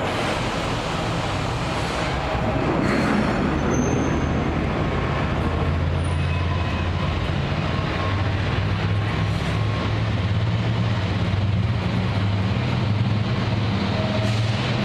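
Class 70 diesel locomotive's GE PowerHaul V16 engine running with a steady low drone as it passes hauling wagons, growing slightly louder after about two and a half seconds.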